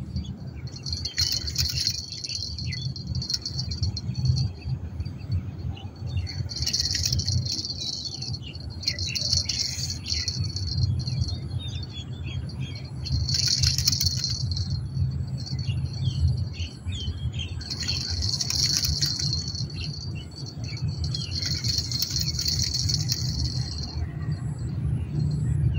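Fishing reel's drag buzzing in about six runs of one to three seconds as a hooked patin catfish pulls line during the fight, with reel clicks in between.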